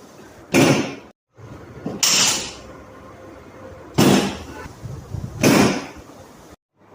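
Four loud thuds from chiropractic adjustment thrusts, a second or two apart, with the sound cutting out briefly twice between them.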